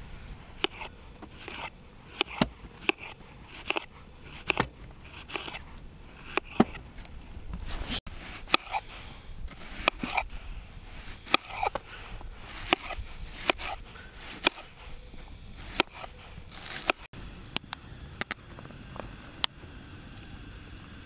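Kitchen knife slicing through raw onions onto a wooden cutting board: a steady run of crisp cuts, a little more than one a second. Near the end the cutting stops and a steady hiss from a kettle over a wood fire takes over.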